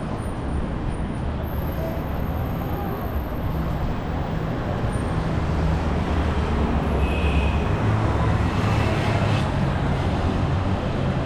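City street traffic: a steady wash of road noise, with a vehicle engine's low rumble growing louder through the middle and later part as it passes close by. A short, faint high squeal comes a little past halfway.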